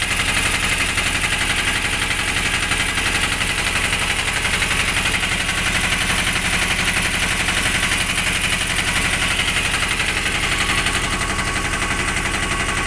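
Freshly rebuilt Greaves BS4 engine running steadily at idle.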